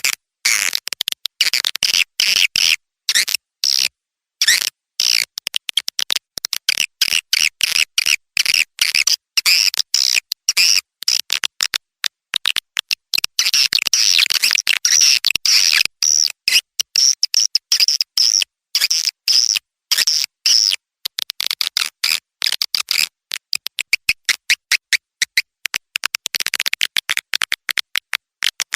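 Recorded edible-nest swiftlet calls, a dense chattering of rapid high chirps with many brief breaks: a lure call track played to attract swiftlets to a swiftlet house.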